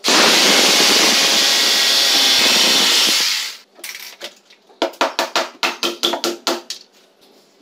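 Corded electric drill running flat out for about three and a half seconds as it bores through the cabinet's panel, then stopping. About two seconds later a hammer taps a small fastener in with about ten quick blows.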